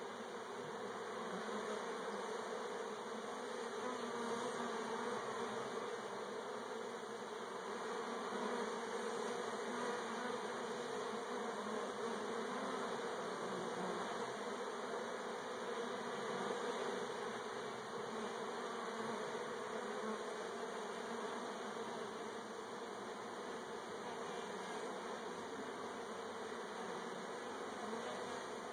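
Many honeybees buzzing together in a steady, unbroken hum around an opened hive whose comb is exposed and being smoked for the honey harvest.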